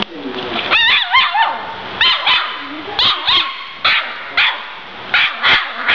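Australian Shepherd puppy yipping and barking in high, whiny bursts of one to three calls about every second, the frustrated noise of a dog that can't squeeze under a couch.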